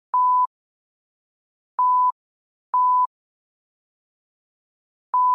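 Four short electronic beeps at a single steady pitch, unevenly spaced with silence between them: the sound effect of an animated intro's loading counter.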